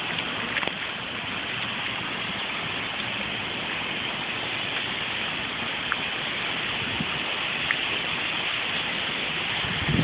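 Continuous chatter of a large flock of birds swarming a tree at dusk: many overlapping calls blend into a steady hiss, with a few sharper chirps standing out now and then.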